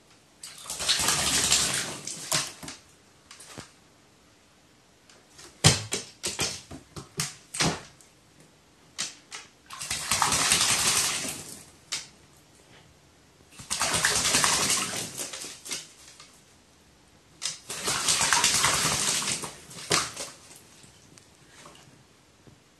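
Pet crow bathing in water, splashing in four bouts of about two seconds each, with light taps and knocks between them.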